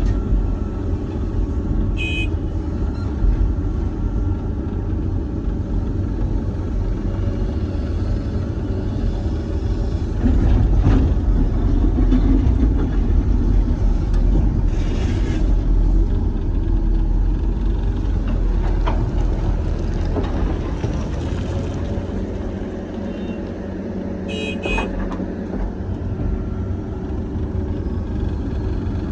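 Doosan DX420LCA excavator's diesel engine running steadily while working, heard from inside the cab, pulling harder for several seconds in the middle. Two short high beeps sound, one about two seconds in and one near the end.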